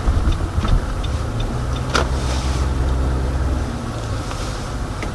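Car engine and road rumble heard from inside the cabin while driving, with a sharp click about two seconds in.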